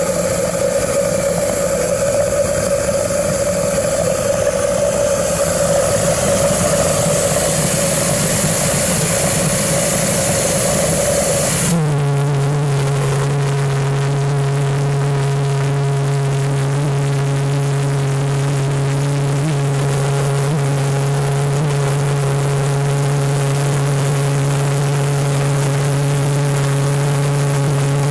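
Homebuilt propane-fuelled jet engine with no moving parts, running loud: a rushing roar with a strong hiss, which changes abruptly about twelve seconds in to a steady, lower droning tone.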